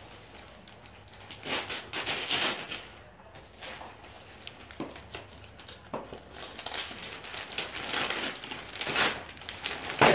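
Christmas wrapping paper being torn and crumpled off a gift box, in irregular bursts of ripping and crinkling.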